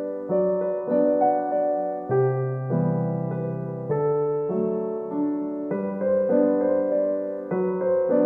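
Background piano music: struck notes that ring and fade, with the chord changing about every two seconds.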